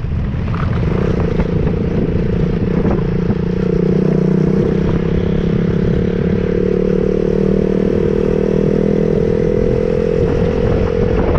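Motorcycle engine running at a steady speed while riding, with a low rumble underneath.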